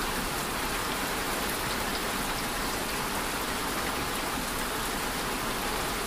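Steady rain: an even hiss of drops falling on a surface, with faint scattered drop ticks.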